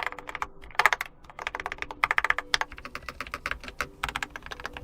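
Typing on a Keychron K4 HE keyboard with Nubia linear Hall-effect magnetic switches: rapid keystrokes in quick bursts. The keys sound free of the earlier scratchiness now that the plastic shavings under them have been removed.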